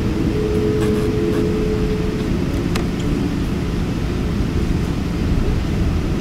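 Cabin noise of a Boeing 777-200ER taxiing, heard from a window seat: a steady low rumble of the engines near idle and the rolling gear. A steady hum fades out about two seconds in, and there is a single light click about three seconds in.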